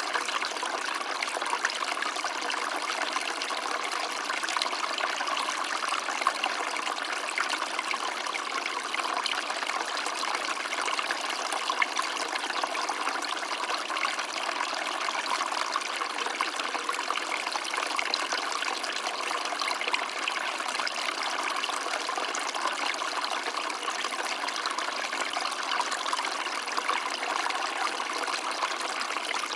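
A stream of water running steadily, an even splashing hiss with no pauses.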